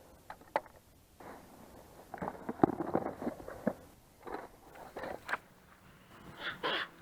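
Irregular rustling and scuffing with a scatter of sharp clicks and knocks, busiest in the middle: an angler packing up and moving about with his fishing tackle.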